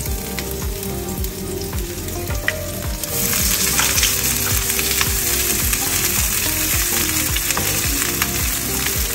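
Sliced onion sizzling as it fries in hot oil in a pan, the sizzle growing louder about three seconds in, over a regular low knocking a couple of times a second.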